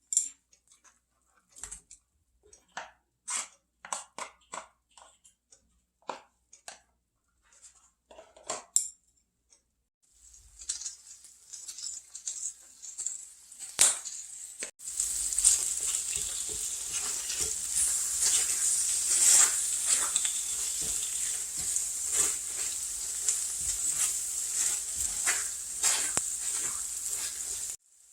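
Utensils clicking and clinking against dishes in separate taps, then food frying in oil in a pan: a sizzle builds about ten seconds in and becomes a loud, steady sizzle with stirring knocks, cutting off just before the end.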